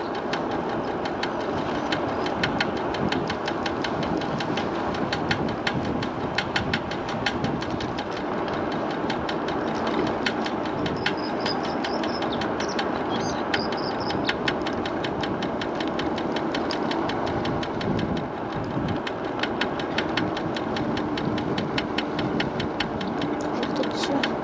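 MiniPro Mi716 electric scooter riding with a rapid, even knocking from the front wheel over road and wind noise. The knock is a fault that she later fixes.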